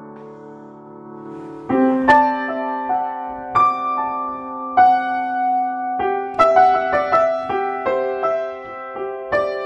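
Solo piano playing a slow free-tonal improvisation. A held chord dies away, then about two seconds in a low note is struck and held under a slow string of single notes and chords.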